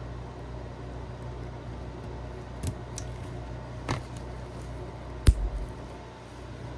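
Light metallic clicks, then one sharper click about five seconds in, as a steel snap ring is worked onto the reverse idler gear shaft with snap ring pliers. A steady low hum runs underneath.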